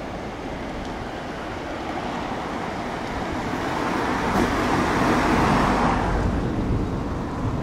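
Diesel multiple unit running away over the pointwork: a steady rumble of engine and wheels on rail that swells about four seconds in and eases near the end.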